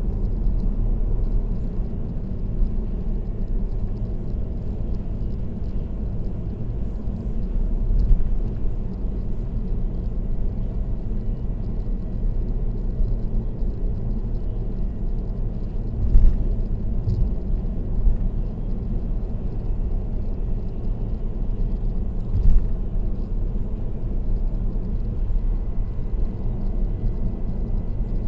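Steady tyre and road noise of a car travelling at expressway speed, a low rumble with three brief thumps spread across it.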